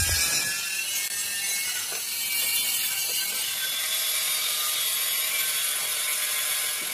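Stick arc welding on steel: the arc gives off a steady crackling hiss.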